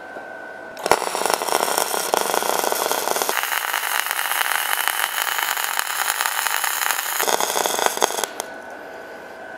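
Gasless flux-cored MIG welding arc on 4 mm stainless steel plate, crackling and sizzling as the wire feeds. It strikes with a sharp crack about a second in, runs steadily for about seven seconds, then stops.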